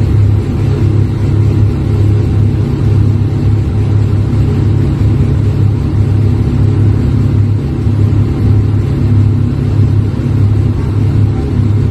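A large Daewoo forklift's engine running steadily with a loud, low rumble that does not change.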